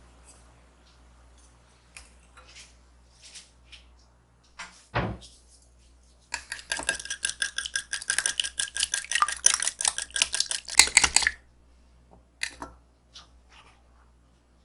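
A whisk or utensil beating rapidly in a mixing bowl for about five seconds, clinking against its sides, after a single knock of something set down on the counter; light clicks of utensils before and after.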